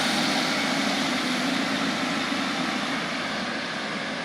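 Passenger train pulling out of the station: steady running and rail noise with a faint high whine, slowly fading as it moves away.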